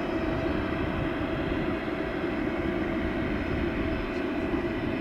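Airbus A340-600's four Rolls-Royce Trent 500 turbofan engines running at low taxi power: a steady rumble with a faint, even whine over it.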